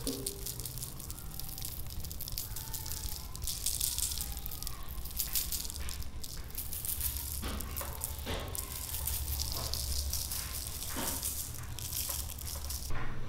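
Sugar sprinkled over donuts on a parchment-lined tray: a steady fine hiss of grains pattering onto the paper and donuts, with a few louder showers partway through.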